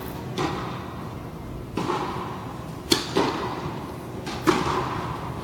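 Tennis rally: a ball struck by rackets and bouncing on the hard court, about five sharp knocks a second or so apart, echoing in a large indoor hall; the loudest hits come about three and four and a half seconds in.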